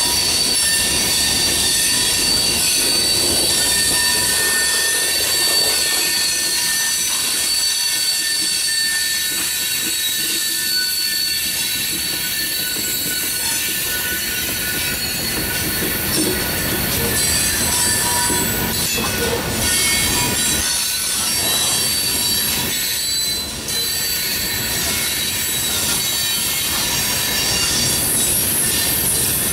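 Loaded coal hopper cars of a freight train rolling past at close range. The steel wheels squeal in thin, steady high tones over the continuous rolling noise of wheels on rail.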